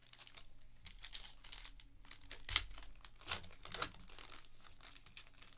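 A foil pack of Panini Elite Extra Edition baseball cards being torn open and its wrapper crinkled by hand, in a run of short crackles that are loudest about two and a half seconds in and again around three and a half to four seconds in.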